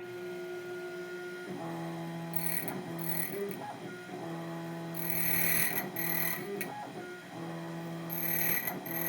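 ITL 9700A electronic key cutting machine cutting a Yale key: a steady motor hum that stops and restarts, with repeated bursts of higher grinding hiss as the cutter works the blank.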